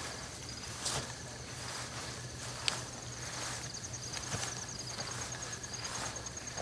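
Crickets chirping in a steady, high pulsing trill, with a few soft footsteps and rustles on grass.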